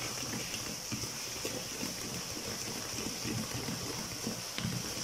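A hand squelching and sloshing through runny egg batter in a plastic bowl, in irregular wet squishes as the fingers squeeze and stir it.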